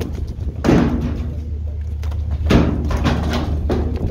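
Steady low drone of the fishing boat's engine, with loud heavy thuds and slams on deck: one under a second in, then three more in quick succession near the end.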